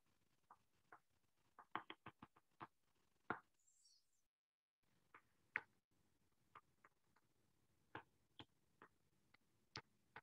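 Stylus tip clicking and tapping on a tablet's glass screen during handwriting: scattered, irregular sharp little clicks over faint room hiss. The audio drops out completely for about half a second a little before the middle.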